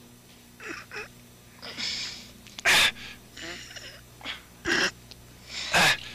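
A person's breathing while straining to lift a barbell: a series of short, sharp gasps and exhales, a few of them loud.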